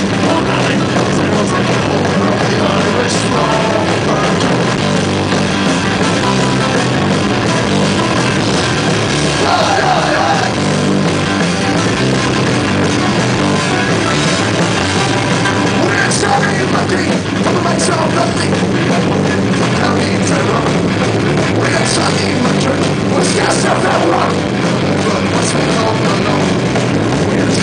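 Celtic punk band playing live through the PA, loud and steady, with electric guitars, bass and drums.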